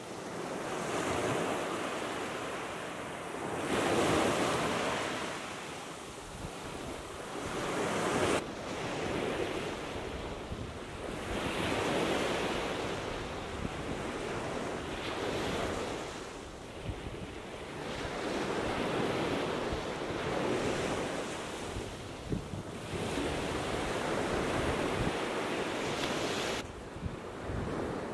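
Small waves breaking and washing up on a sandy Gulf of Mexico beach. The surf swells and eases every few seconds, with two abrupt breaks in the sound.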